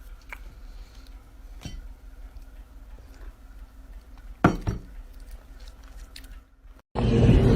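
A few light clicks and knocks over a faint steady hum, the loudest a quick double knock about four and a half seconds in. Near the end a much louder, steady noisy sound cuts in suddenly.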